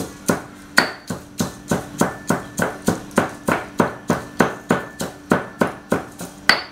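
Stone pestle pounding dry-roasted chillies in a granite mortar, grinding them fine: a steady run of knocks about three a second.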